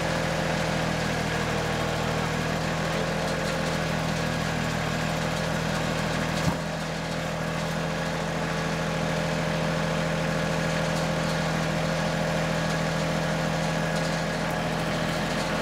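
Compact tractor engine idling steadily, with one short knock about six and a half seconds in.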